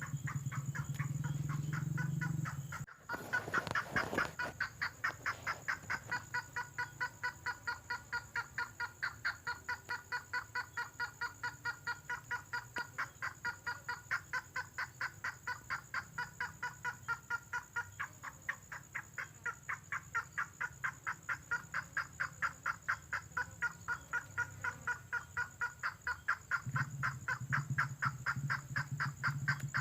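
Lure recording of a red tengkoah bird calling: a long, fast run of short, evenly repeated notes, several a second, starting about four seconds in and continuing without a break. A low hum sits under the start and returns near the end.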